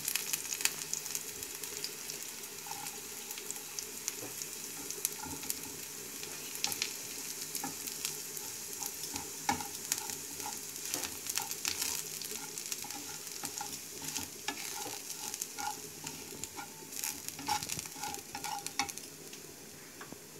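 Crushed almonds frying in oil in a non-stick pan with cumin, ginger and green chilli, sizzling steadily while a wooden spatula stirs them, with frequent clicks and scrapes against the pan. The sizzle grows quieter toward the end.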